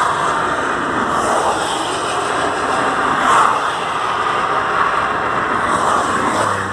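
Steady vehicle noise: an even, loud whoosh with no clear beat or pitch.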